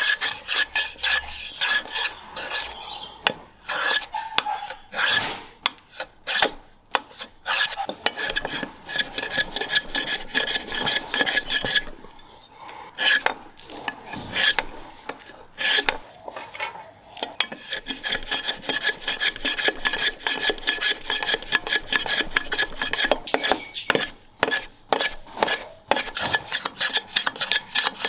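Small block plane shaving wood by hand, in fast runs of short rasping strokes with brief pauses between runs.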